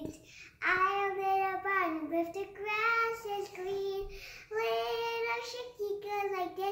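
A young girl singing alone without accompaniment, in three held phrases with short breaks between them.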